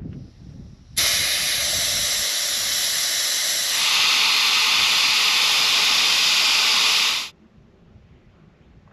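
Air hissing out of a pickup truck's tire as it is let down at the valve: a loud, steady hiss that starts abruptly about a second in, grows brighter midway and cuts off suddenly about seven seconds in.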